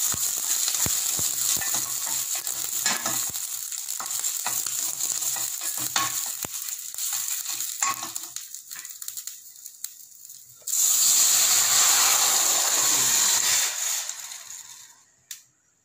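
Mustard seeds, crushed garlic and curry leaves sizzling in a little hot oil in a stainless steel pan, stirred with a wooden spatula, with scattered pops and scrapes; the sizzle dies down. About eleven seconds in, a sudden loud hiss as tomatoes in rice-washing water are poured into the hot tempering, fading away near the end.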